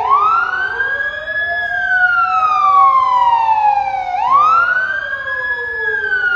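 Emergency vehicle siren wailing loud, its pitch rising quickly and then falling slowly, twice, about four seconds per cycle. A second, fainter siren glides lower underneath.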